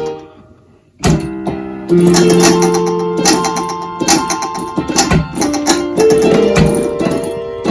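A Yamaha electronic keyboard played by a Pianocorder's key solenoids: after a brief lull the music resumes about a second in. Sharp clicks run through it as the solenoids slap the hollow, unweighted plastic keys hard.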